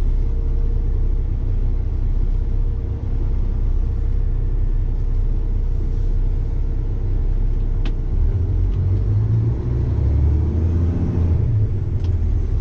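Diesel truck engine running steadily under load, heard from inside the cab as the truck drives out over soft ground. It works harder about two-thirds of the way through.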